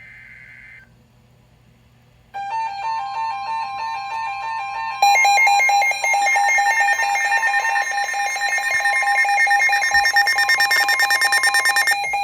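Emergency alert tones: the short buzzy burst that ends a data header, then, after about two seconds of quiet, an electronic alarm of stepping, pulsing beeps. The alarm gets louder about five seconds in, pulses faster toward the end and cuts off abruptly.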